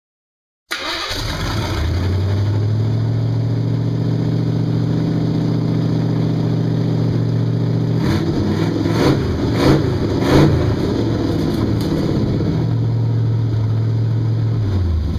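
A hot rod's V8 engine idling steadily. About halfway through the throttle is blipped three times, then the engine settles back to an even idle.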